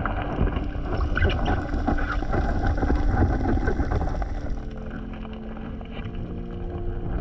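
Underwater sound through a submerged action camera: a muffled rush of water with scattered clicks and crackles, easing off about halfway through.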